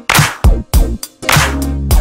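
Instrumental background music with a hard-hitting drum beat, about two hits a second, over a bass line.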